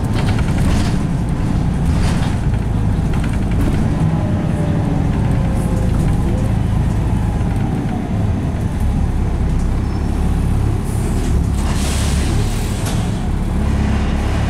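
Volvo B7RLE single-deck bus with ZF automatic gearbox heard from inside the cabin while driving: a steady engine and drivetrain rumble, with a faint whine sliding in pitch around the middle. A short hiss of air comes about twelve seconds in.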